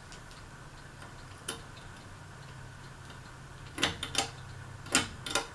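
Fanimation Windpointe ceiling fan starting up on its low setting: a low motor hum that grows stronger partway through. Sharp irregular clicks come over it, most of them bunched near the end.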